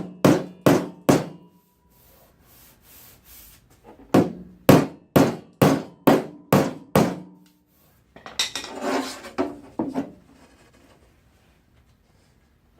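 Hammer tapping down a high spot on a 1965 Pontiac LeMans door panel: about four sharp metal strikes, a pause, then about seven more at roughly two a second, and a quicker, busier flurry of taps about eight seconds in.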